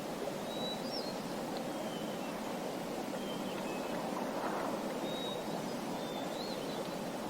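Small birds giving scattered short, high chirps over the steady rush of a flowing stream.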